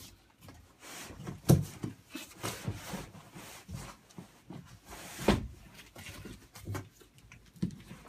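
Cardboard boxes scraping and knocking as an inner box is tugged out of a tight-fitting outer shipping box, with two louder thumps, about a second and a half in and about five seconds in.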